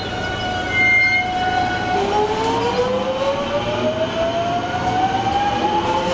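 Electric commuter trains' traction motors whining at a station platform: one whine sinks and levels off as a train slows, then about two seconds in a new whine climbs steadily in pitch as a train accelerates away. A brief high beep sounds about a second in.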